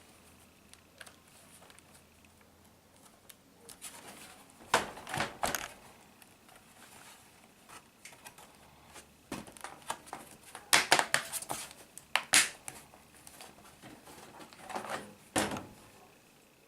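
Sharp plastic clicks and clacks from an Acer E5-411 laptop's case and parts being handled, coming in three short clusters: about five seconds in, around eleven to twelve seconds, and near the end.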